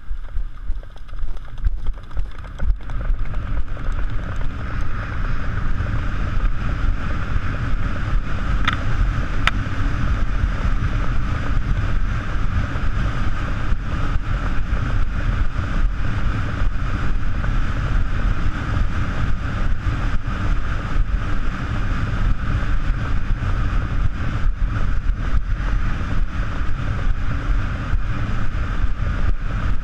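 Strong wind buffeting the microphone over the steady running of a vehicle driven fast along a beach, a constant rushing rumble.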